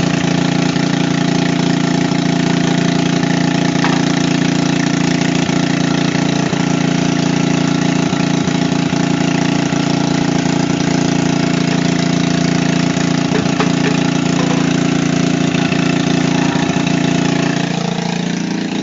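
Small petrol generator engine running steadily at a constant speed. Near the end its pitch starts to drop as it slows down.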